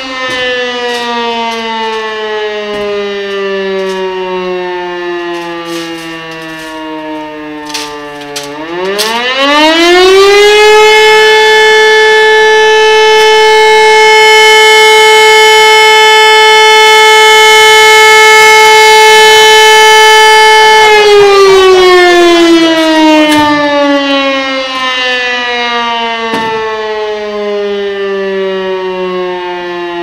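Rooftop E57 electromechanical siren sounding a real alarm, not a test. Its tone winds down over the first eight seconds, climbs quickly back up to a loud steady wail held for about ten seconds, then slowly winds down again.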